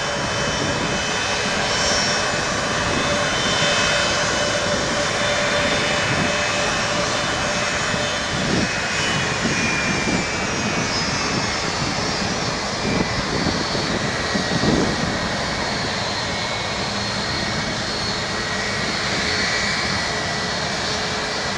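Boeing 767-200ER's twin jet engines whining at taxi power as the airliner rolls past, a steady hiss under several high-pitched tones that slowly fall in pitch over the second half.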